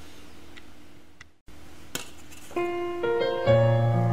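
Faint steady room hum, cut off by a brief moment of silence at an edit; then background piano music comes in a little past halfway, notes entering one after another and growing louder.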